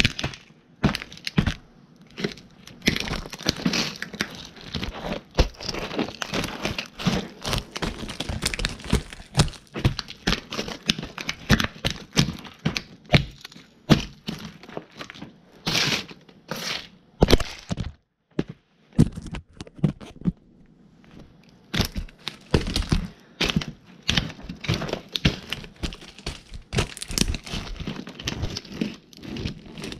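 Toy cars being stomped and crushed under heavy logger boots: many sharp cracks, crunches and thuds in quick succession as the toys break apart, with a short lull a little past halfway.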